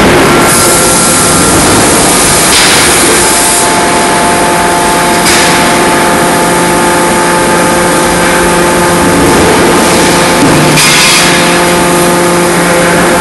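Loud, steady industrial machinery din of a drop-forging shop: a continuous noisy roar with a steady multi-tone hum underneath, shifting slightly a few times, with no distinct hammer blows.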